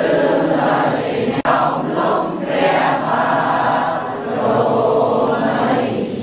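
A roomful of people singing together in unison, men's and women's voices mixed.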